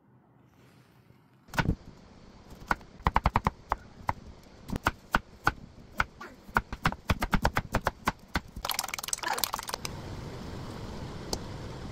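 Kitchen knife chopping carrot on a wooden cutting board: a quick, irregular run of sharp knocks starting about a second and a half in. Near the end it gives way to a steady rushing noise from a pot boiling on the stove.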